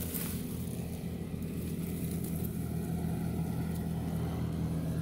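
Steady low engine drone: a motor running at a constant speed with an even hum, no revving.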